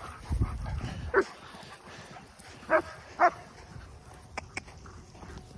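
A dog barking: three short barks, one about a second in and two close together a little later.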